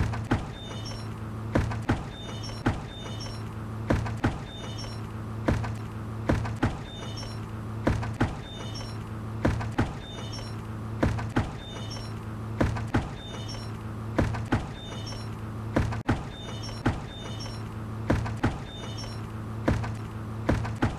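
A hanging bucket knocking again and again, the knocks irregular and often in pairs, roughly one or two a second, with faint high squeaks between them over a steady low hum.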